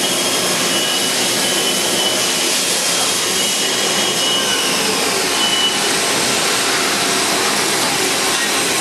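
Okuma & Howa ACT twin-spindle CNC lathe winding down after being told to shut down: a loud, steady whirring hiss, with a faint tone falling in pitch about four to five seconds in.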